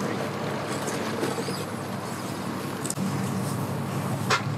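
Jet ski engine idling, a steady low hum that gets a little stronger about three seconds in, with one sharp knock near the end.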